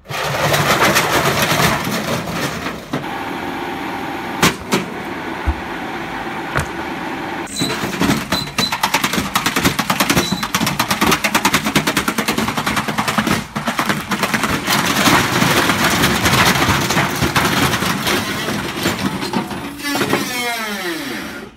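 Tricity Bendix 1000 washing machine shaking itself apart during its self-destructing run: a loud, fast, continuous banging and rattling with heavier bangs now and then. Near the end it winds down with a falling whine.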